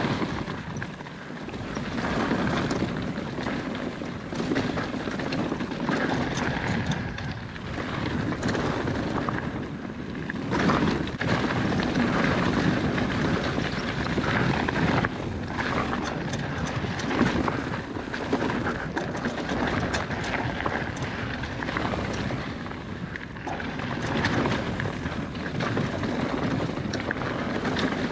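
Mountain bike rolling fast over rocky desert singletrack: tyres crunching on gravel and stones and the bike rattling over the bumps, with wind rushing over the microphone.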